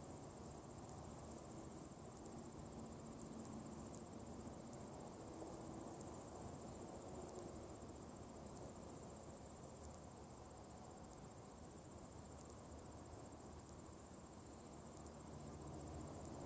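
Faint outdoor ambience: a steady, high-pitched insect-like trill over a low, even rumble.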